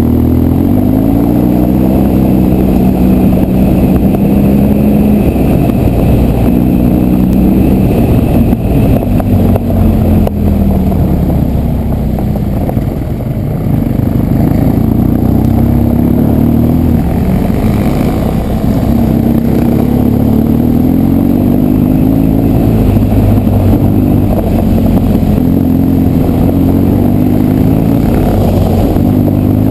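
BMW R1200 GS boxer twin engine running on the move, heard on board, its pitch rising and falling over and over as the throttle is opened and closed, over a steady rumble. The sound dips a little in loudness about twelve seconds in.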